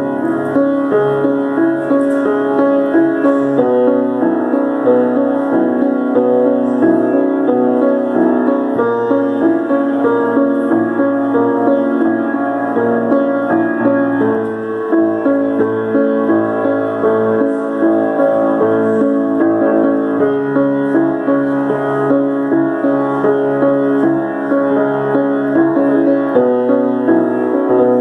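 Piano played solo: a steady run of full chords with many notes sounding together.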